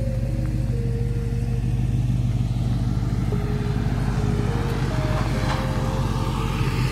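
Classic 1960s Ford pickup truck's engine running with a steady, deep exhaust rumble as the truck drives past.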